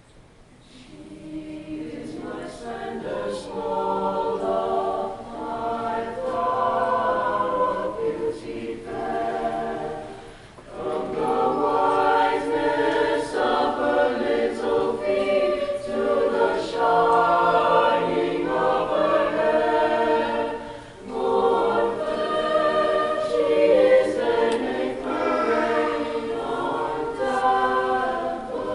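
Mixed choir singing in harmony, starting softly about a second in and swelling, with short breaks between phrases about ten and twenty-one seconds in.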